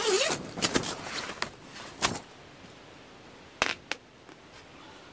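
A tent zipper pulled, ending just after the start, followed by several sharp clicks and taps as a metal stove-pipe ring is handled and fitted into a hole in the canvas.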